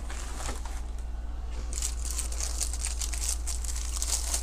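Plastic packaging and bubble wrap crinkling as hands unwrap a replacement laptop LCD panel. It is quieter at first, then comes in busy, irregular crackles from about halfway in, over a low steady hum.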